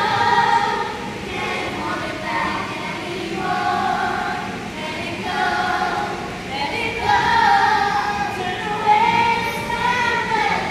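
A group of young children singing a song together in unison, holding each note for about half a second to a second.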